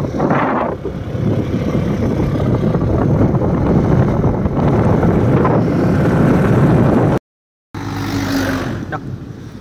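Wind rushing over the microphone of a moving motorbike, mixed with its running noise. It drops out for about half a second about seven seconds in, then the wind noise goes on.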